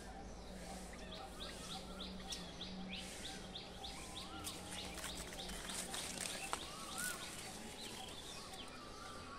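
Birds chirping outdoors: a quick run of short, high repeated notes, about three a second, through the first half, with lower arching whistled calls scattered throughout. A few faint clicks come in the middle, over a steady low hum.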